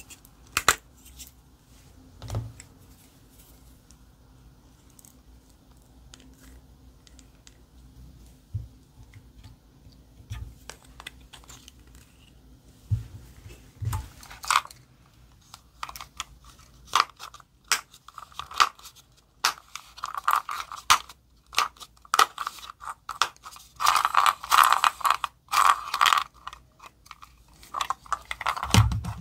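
Slime being handled and mixed with makeup pieces: scattered clicks and taps at first, then from about halfway a dense run of sticky clicks, crackles and pops as the slime is squished and pressed.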